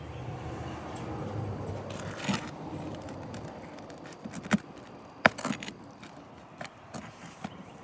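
Scattered sharp knocks and clinks of hand tools working on an asphalt shingle roof, the loudest about two and a half, four and a half and five and a quarter seconds in, over a low rumble that fades after the first few seconds.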